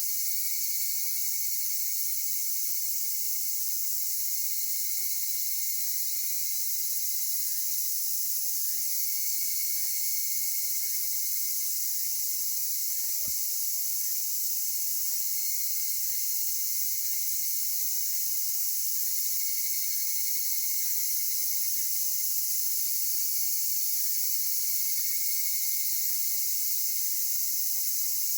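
Dense chorus of insects: a steady, high-pitched shrill hiss. Over most of it a short chirp repeats every half second or so, and there is a single sharp click about thirteen seconds in.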